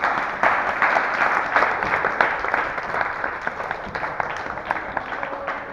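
A group of people applauding with hand claps, loud at first and slowly thinning out toward the end.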